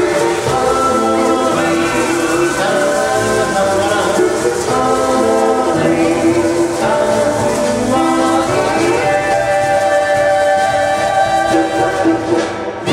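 Tahitian dance song with singing voices over the band's music.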